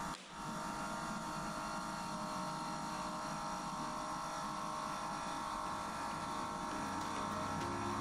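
Whirlpool WSIP 4O33 PFE built-in dishwasher running with a steady electric hum.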